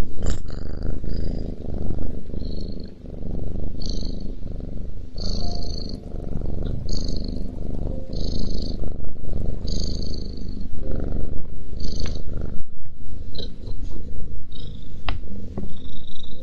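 Domestic cat purring loudly and close up, the purr swelling and dipping with each breath. Short high-pitched sounds come on many of the breaths.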